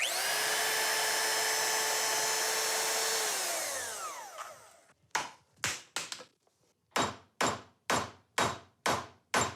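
A small electric power-tool motor runs steadily for about three seconds, then is switched off and winds down in pitch. After it, a series of sharp knocks, about two to three a second.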